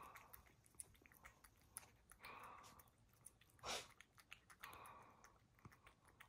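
A black cat licking a lickable paste treat from a squeeze tube: faint wet lapping and small tongue clicks, with one louder short noise about halfway through.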